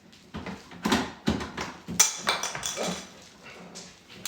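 Bassinet leg parts clattering and knocking as they are handled and pushed into place: a quick run of sharp knocks and clicks in the first three seconds, the loudest about one and two seconds in.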